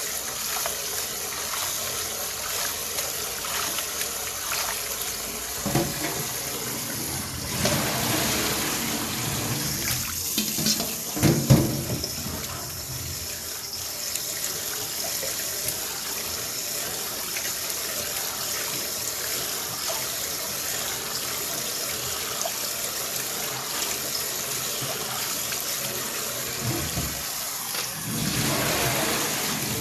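Water running steadily from a kitchen tap into a sink, with a few knocks and clatters of kitchenware, the loudest about eleven seconds in.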